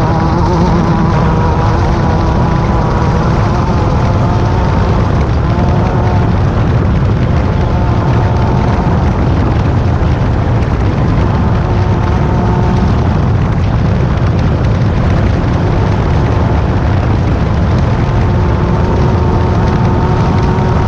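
A Class 10 desert race buggy's engine running continuously under load, its pitch shifting up and down a little every few seconds, over a constant loud low rumble.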